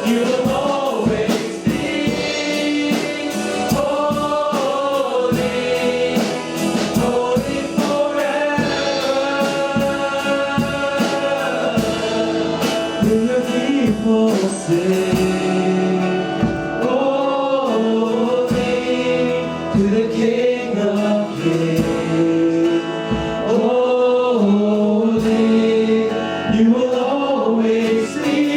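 Church worship band and singers performing a contemporary worship song, with sung melody over instruments and a steady beat.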